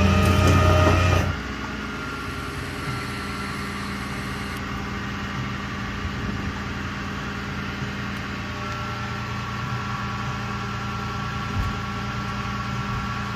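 Rollback tow truck's engine idling steadily. A louder burst in the first second or so cuts off abruptly.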